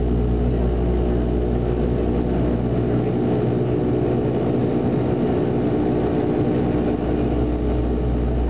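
Dash 8-300's Pratt & Whitney Canada PW123 turboprops and propellers droning steadily in flight after take-off, heard inside the cabin as a steady hum of several tones over a deep rumble. The deep rumble thins for a few seconds in the middle and then comes back.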